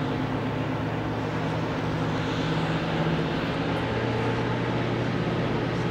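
Class 55 Deltic diesel-electric locomotive, with twin Napier Deltic two-stroke engines, idling at a standstill with a steady drone. Its note shifts slightly about four seconds in.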